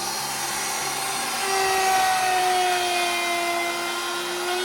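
Electric router with a laminate trim bit running and cutting the edge of a Formica countertop sheet: a steady high whine that gets louder and drops slightly in pitch about one and a half seconds in as the bit takes the load.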